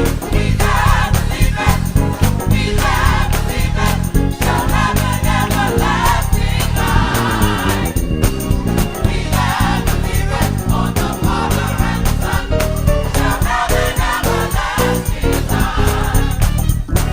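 Gospel choir singing in full voice over a band, with a heavy bass line and drums driving a steady beat underneath.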